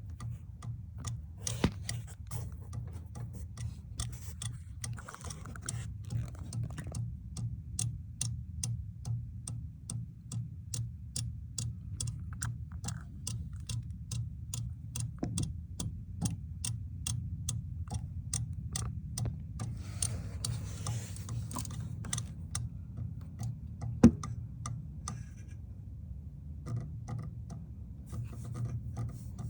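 Rapid, even clicking from the engine compartment of a 2020 Toyota RAV4 Hybrid, about two to three clicks a second over a steady low hum, with a single louder click near the end. The clicking comes with a no-start, and the brake pedal feels stuck and won't go down all the way.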